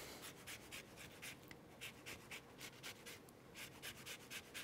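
Lemon peel being grated: faint, quick scraping strokes, about four a second, with a brief gap past the middle.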